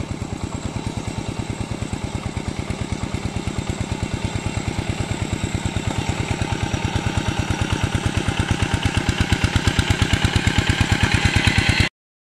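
Single-cylinder Yanmar diesel of a Quick G1000 two-wheel hand tractor chugging with an even, rapid beat while plowing, growing steadily louder as it comes closer. It cuts off abruptly near the end.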